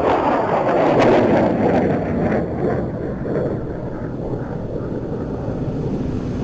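A HIMARS rocket roaring away after launch: a loud rushing noise that falls in pitch and eases over several seconds, with a sharp crack about a second in.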